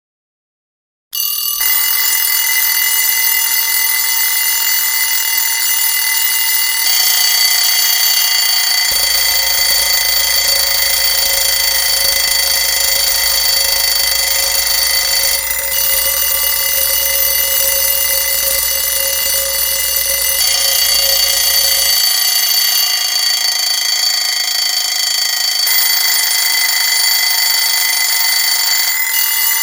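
Several alarm clocks go off together about a second in, as the countdown timer reaches zero, and keep ringing loudly without a break, the mix of tones shifting every few seconds.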